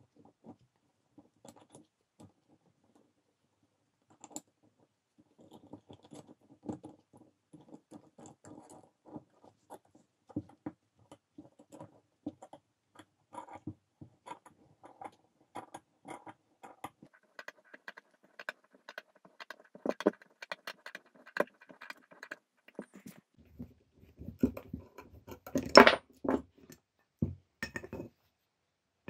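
Small gear puller working on an alternator: a string of light metal clicks and ticks as its screw is turned, growing denser, then several louder knocks and a clatter near the end as the drive-end housing is pulled off the rotor shaft.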